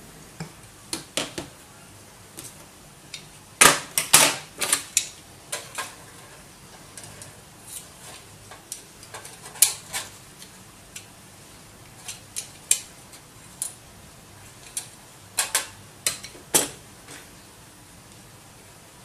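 Metal tool clinking and clicking against a metal heater plate and ceramic CPU chips, in irregular sharp taps bunched about four seconds in, around ten seconds and again near the end, as processors are handled on the heater to lift off their soldered caps.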